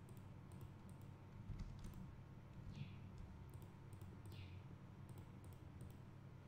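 Faint computer mouse clicks, scattered irregularly, over a low steady hum.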